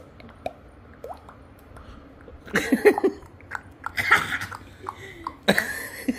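A child making vocal sound effects with the mouth, beatbox-style: three short bursts of throaty, sneeze-like mouth noises after a quiet start of about two and a half seconds.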